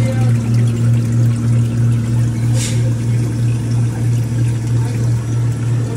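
Manitowoc SD0852A cube ice machine running: a loud steady low hum that pulses slightly, with the sound of water running through the machine. A short sharp noise comes about two and a half seconds in.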